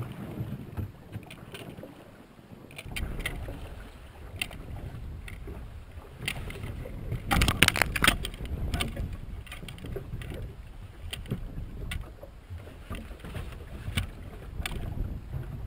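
Small aluminum fishing boat on the open sea: a steady low rumble of wind on the microphone and water against the hull, with scattered sharp clicks and knocks from rod, reel and boat while a salmon is being played. A louder cluster of knocks comes about halfway through.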